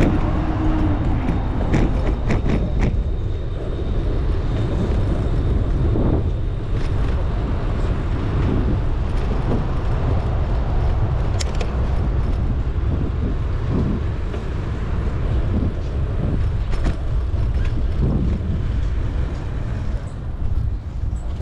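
Riding noise picked up by a GoPro on a bicycle in city traffic: wind rumbling on the microphone over road and vehicle noise, with a few sharp clicks and rattles.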